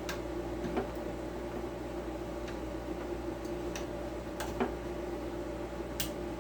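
Scattered light clicks and taps, about seven in all, as AAA batteries are handled and fitted into a small plastic battery compartment, over a steady background hum.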